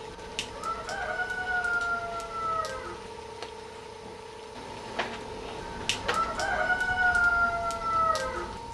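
A rooster crowing twice, each crow a drawn-out call of about two seconds that rises, holds and falls away at the end. A steady hum and scattered faint clicks run underneath.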